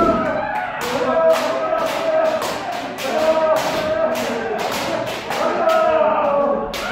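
Kendo practitioners shouting long, drawn-out kiai over one another, with many sharp cracks of shinai (bamboo swords) striking and stamping feet.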